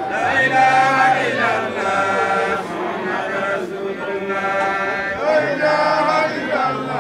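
A group of voices chanting together, unaccompanied, in long held phrases with short breaks between them.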